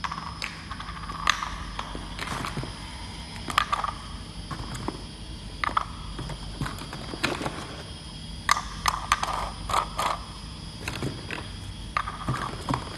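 Small hard plastic jars being handled and set down, giving irregular clicks and short clatters, with a cluster of them about two thirds of the way through. A faint steady machine hum runs underneath.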